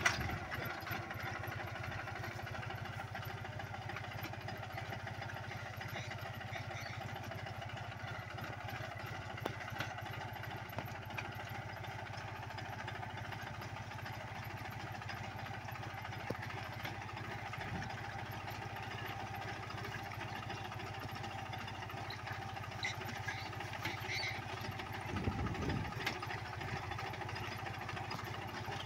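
Captain 250 mini tractor's diesel engine running steadily under load as it pulls a tined inter-cultivator between crop rows, with a short low thump near the end.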